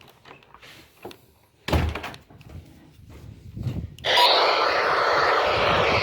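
A single thunk from handling equipment. Then, about four seconds in, a radio's static hiss starts suddenly and stays loud and steady, as if the receiver is switched on or tuned between stations.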